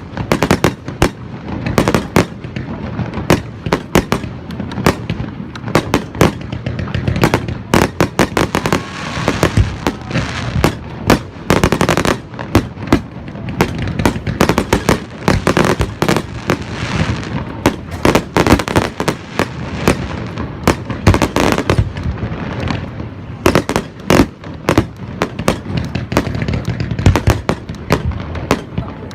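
Aerial fireworks going off in a dense, continuous barrage: many sharp bangs in quick succession, with stretches of crackling between them.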